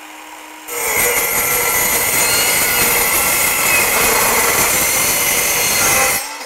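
DeWalt DCS373 18V cordless metal-cutting circular saw with a 30-tooth carbide-tipped blade spinning free, then biting into galvanised steel Unistrut channel about a second in and cutting through it with a loud, steady screeching whine. Near the end the blade clears the cut and the motor winds down.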